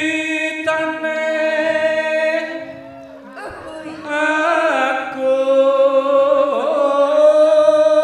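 Javanese song sung into a microphone in long, drawn-out notes ('Wiwitane… aku…'), over steady lower held instrument tones, with one short knock about halfway through.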